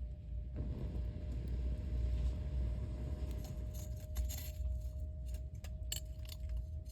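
Wood fire crackling, with sharp pops and snaps that come thicker from about three seconds in, over a constant low rumble.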